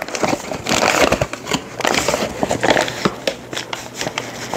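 Paper flour bag rustling and crinkling as it is handled at its open top: a dense run of crackles and small clicks.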